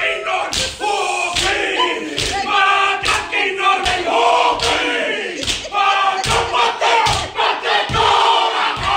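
Māori haka: a group of men shouting a chant in unison, with sharp stamps and body slaps landing on the beat about once a second.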